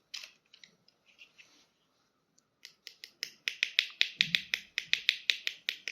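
A few scattered sharp clicks, then, from about two and a half seconds in, a fast, even run of sharp clicks, about five a second.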